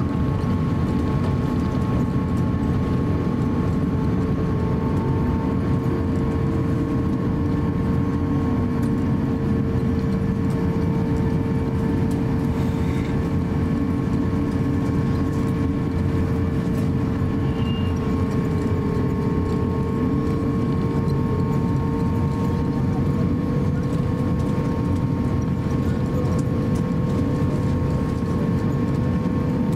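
Cabin noise of an Airbus A350-900 taxiing: its Rolls-Royce Trent XWB engines running at low taxi thrust, a steady low rumble with a few held whining tones.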